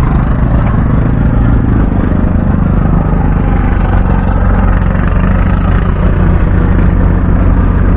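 1999 Chevy Silverado pickup's engine running steadily at low speed while the truck is backed up a short way.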